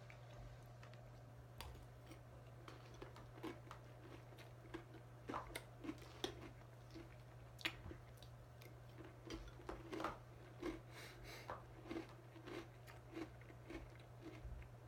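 A person chewing Lucky Charms cereal: faint, irregular crunching and mouth sounds, a few every second, over a steady low hum.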